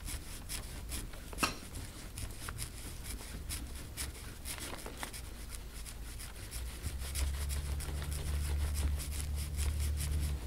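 Dry scratchy rubbing and scraping over skin during deep-tissue back work: a run of short rasping strokes. A low steady hum comes in about seven seconds in.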